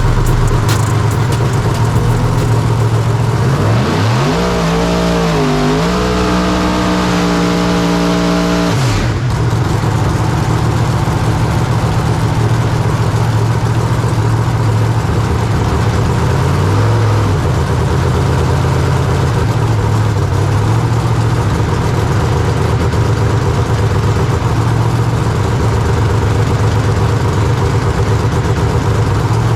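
Pro Mod drag car's V8 engine running loud. About four seconds in it is revved up, held high for a few seconds and cut off sharply, then it settles back to a lumpy idle.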